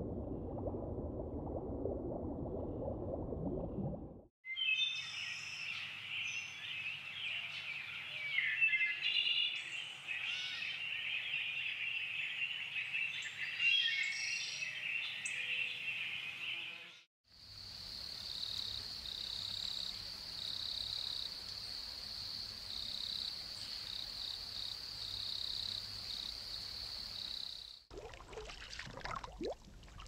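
Nature ambience in separate cuts. It opens with low bubbling water, then after about four seconds a dense chorus of chirping birds and insects, then from about halfway a steady high insect drone that pulses slightly. It ends with faint water splashing and trickling.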